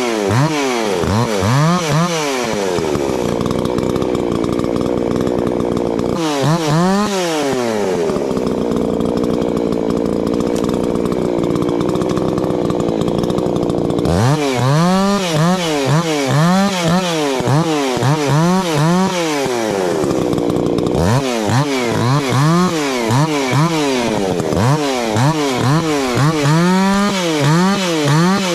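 Two-stroke chainsaw cutting firewood, its engine revved up and down about twice a second, with longer stretches held at a steady speed in between.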